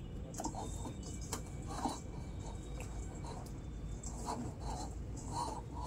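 A hand mixing cauliflower florets with dry gram flour and spices in a steel bowl: soft rubbing and scraping, with scattered small clicks of the pieces against the metal.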